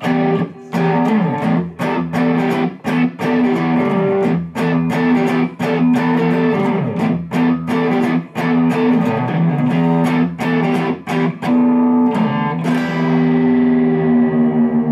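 Electric guitar played on its P90 pickup: a quick run of picked notes and chords, then near the end a chord struck once and left ringing.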